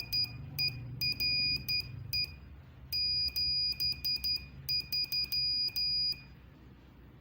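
Morse code (CW) audio tone keyed at 10 words per minute: a high-pitched beep sounded in short dots and longer dashes, stopping about six seconds in.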